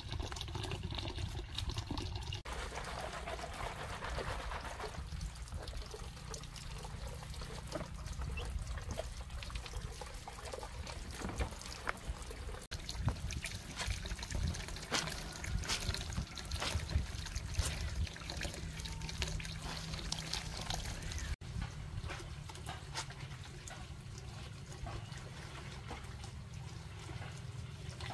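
Clothes hand-washed in a plastic basin of soapy water: water trickling and splashing, with the wet rubbing and squeezing of fabric.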